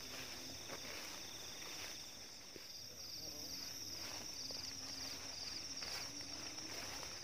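Night insects chirping steadily in a high, finely pulsing drone, with faint footsteps brushing through tall grass.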